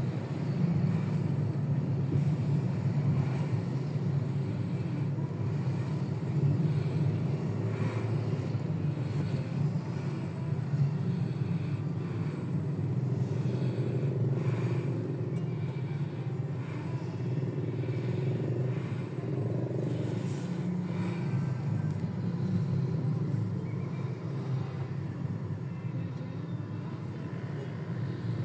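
Steady low rumble of a car heard from inside its cabin as it creeps along in heavy traffic.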